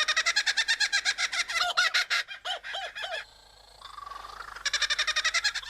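Male superb lyrebird singing a run of mimicked bird calls: fast series of repeated notes that break off about three seconds in, then resume after a brief pause.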